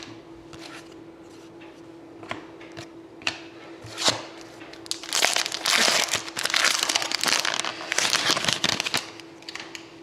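Foil wrapper of a hockey card pack crinkling as it is handled and torn open, after a few light taps of cards being handled.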